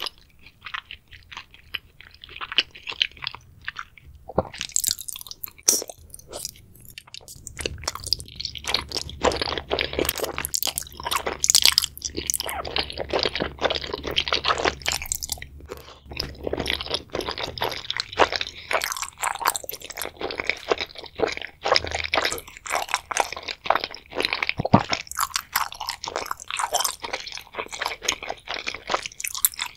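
Close-miked eating sounds of a person chewing wide, flat glass noodles in spicy sauce: dense wet clicks and smacks of the mouth, sparser in the first few seconds.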